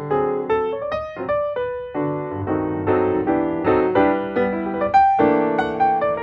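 Background music: piano notes played at a lively pace, several at once in chords.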